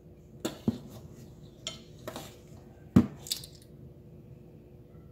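A metal butter knife scraping and tapping against a measuring spoon while scooping sticky marshmallow cream: a few short clicks and scrapes, the loudest knock about three seconds in.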